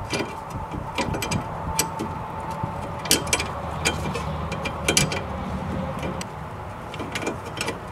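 Scattered light metallic clicks and handling noise as a steel brake-line fitting is threaded by hand into a drum-brake wheel cylinder, over a steady low hum.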